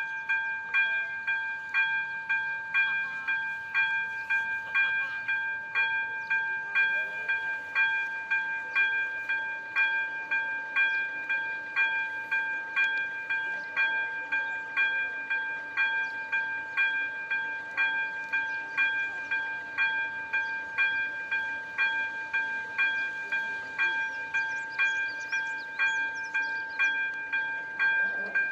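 Level-crossing warning bell switching on, then ringing in regular strikes about one and a half times a second over a steady ringing tone. It signals that a train is approaching and the barriers are about to come down.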